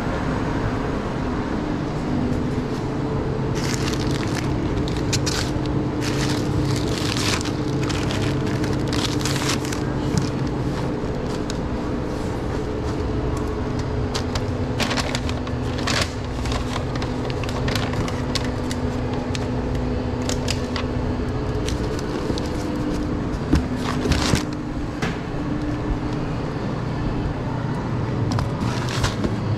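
Steady hum of running machinery with a few fixed tones, and scattered brief rustles and clacks of things being handled, in small flurries; the sharpest clacks come a little past the middle.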